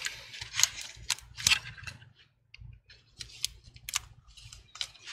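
Small sharp clicks and light plastic taps from fingers working the laptop's flex-cable connectors, opening a connector latch and sliding a ribbon cable out. There are a few clicks in the first second and a half, a near-silent pause about two seconds in, then several more clicks.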